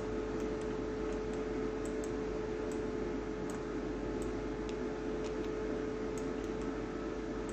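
Steady background hiss and hum with one constant tone, with a dozen or so faint, irregular computer-mouse clicks as spline handles are picked and dragged.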